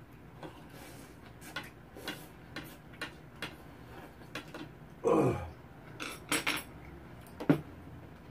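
Chopsticks and spoons clicking against bowls while noodles and soup are eaten, with scattered small taps. About five seconds in comes a louder eating sound from the mouth with a falling pitch, followed by a few sharper clinks.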